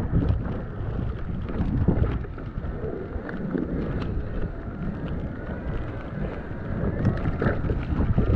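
Wind buffeting an action camera's microphone on an e-bike riding through snow: a steady low rumble with scattered short crackles.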